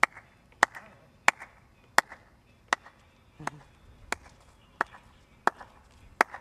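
Sharp clicks at a steady beat, about three every two seconds.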